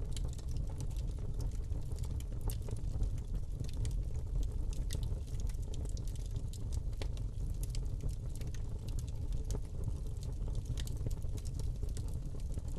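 Fire sound effect: a steady low rumble of flames with scattered crackles and pops throughout.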